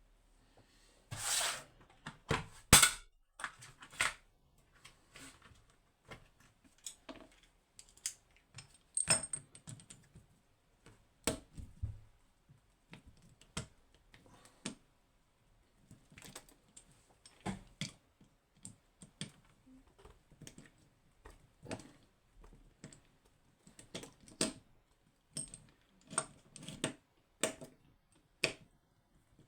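Irregular metallic clicks, taps and knocks of a Clavis 10-pin lock being handled and taken apart with tools, with a short scrape about a second in and a sharp click just before 3 s.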